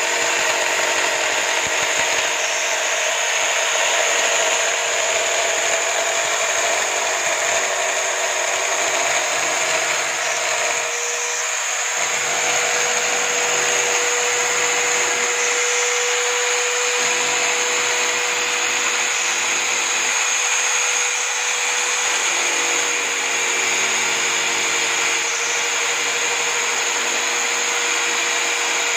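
Electric drill clamped in a stand as a homemade drum sander, its motor running steadily with a constant whine while the spinning sanding drum rubs along the edge of a wooden panel.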